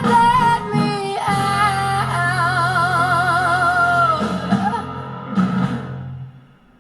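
Pop song played through an 808 CANZ XL portable Bluetooth speaker: a female voice holds a long note with vibrato over guitar and bass. The music fades out about six seconds in.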